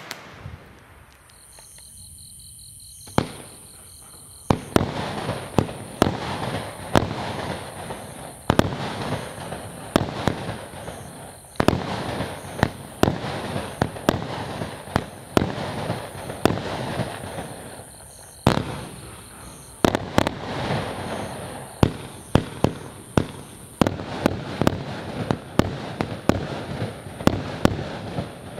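A 20 mm, 40-shot fireworks battery (Argento Sakkara cake) firing shot after shot: sharp launch thumps and bursting pops come irregularly, one or two a second, with a hiss between them. The first three seconds or so are a quieter lull before the shots resume.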